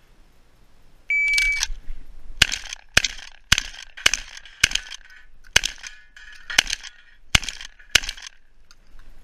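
Shot-timer start beep about a second in, then nine shots from a semi-automatic shotgun in a fast string, roughly half a second to a second apart, as an IPSC stage is shot.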